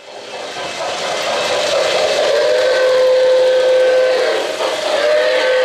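Lionel O-gauge model of the NYC Commodore Vanderbilt streamlined steam locomotive, its RailSounds steam whistle blowing: one long blast starting about two seconds in and a second one beginning near the end. Under it runs the steady running noise of the train on the track, fading in over the first second.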